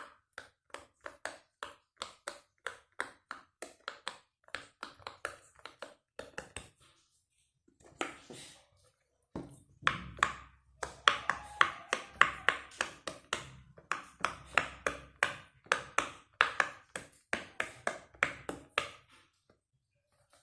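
Silicone Pop It fidget toy bubbles being pressed in, one sharp pop after another at about three a second. There is a pause of a few seconds in the middle, and the pops after it are louder.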